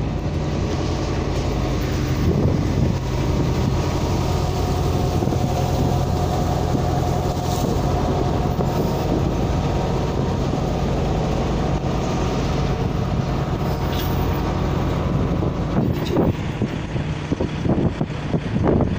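Steady low hum of a moored fishing boat's diesel engine running at idle. Wind buffets the microphone near the end.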